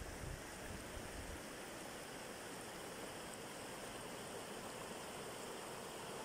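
Shallow river running over stones and small riffles: a steady rush of water.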